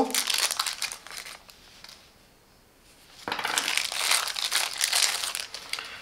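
Plastic packaging crinkling as it is handled and unwrapped by hand, in two bouts with a quiet pause of about a second and a half between them.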